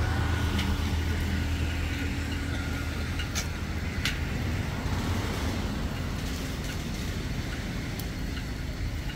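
A motor vehicle engine running nearby: a steady low hum that eases off slowly, with a few short clicks scattered through it.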